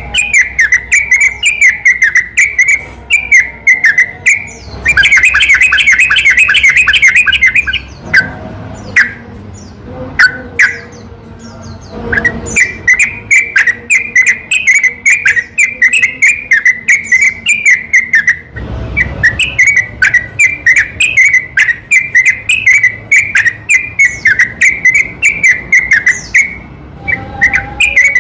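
Yellow-vented bulbul (trucukan) song: loud, rapid strings of short chirping notes in long rolling runs, with a brief lull about a third of the way through.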